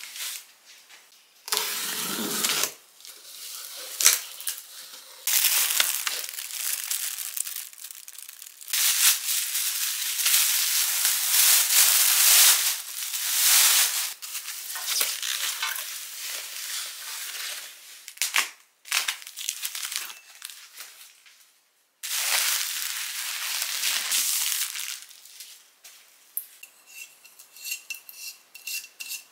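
Unpacking a cardboard parcel and a bubble-wrapped lamp: plastic wrap rustling and crinkling, with tearing and handling of the packaging. It comes in several loud stretches of a few seconds each, with quieter handling between.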